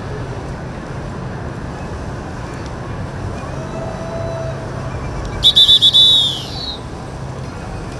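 A shrill whistle, about five quick chirps in a row ending in a note that slides down, over a steady low rumble of boat engines.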